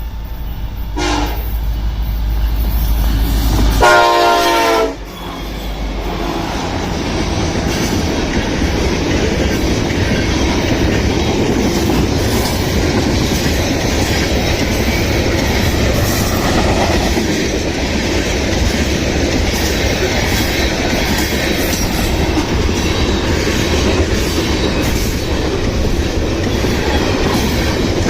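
Diesel freight locomotives rumble past, with a short horn note about a second in and a louder air-horn blast around four seconds. Then the train's cars roll by with steady wheel noise and rail clatter.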